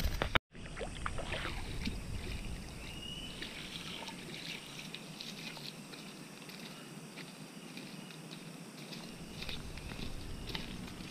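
Footsteps on dry leaf litter, with scattered rustles and small clicks as leaves and twigs are trodden. The sound drops out briefly just after the start.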